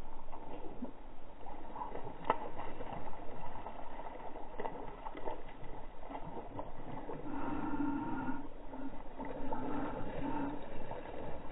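Hooked bass thrashing and splashing at the water's surface, a string of short irregular splashes.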